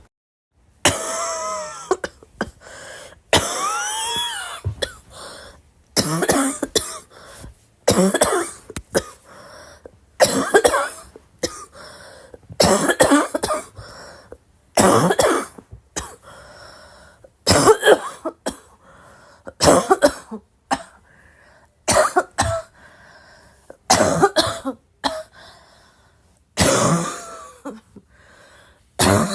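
A girl coughing over and over, a fresh cough or short bout of coughs every second or two.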